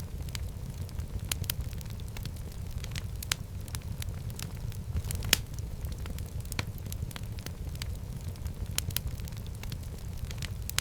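Wood fire burning in a fireplace: a steady low rumble of flames with irregular crackles and pops, one sharper pop about five seconds in.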